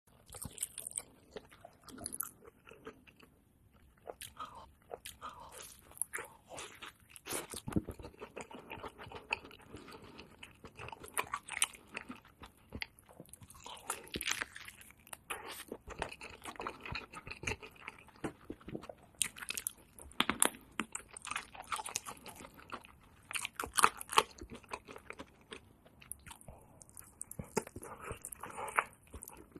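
Close-up biting and chewing of a crispy fried chicken leg: the coating crackles and crunches in irregular bursts, with wet chewing between the bites.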